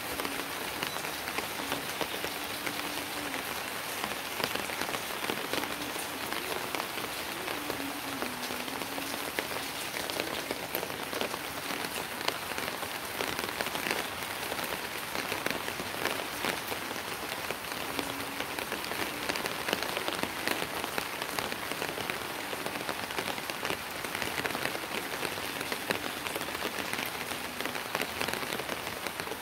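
Steady rain falling, with many small drop ticks throughout.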